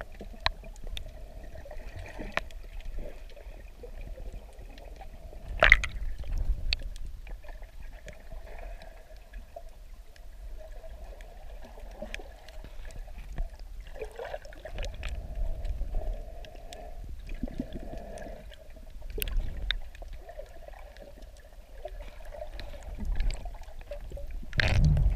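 Underwater sound picked up by a submerged camera during snorkeling: muffled water movement and gurgling that swells every few seconds. Scattered sharp clicks and knocks run through it, the loudest about six seconds in.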